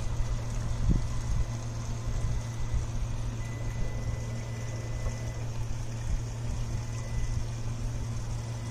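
Remote-controlled Fish Hunter drone fishing boat's electric motors running as it is driven about on the water, a steady low hum with a rumble beneath it.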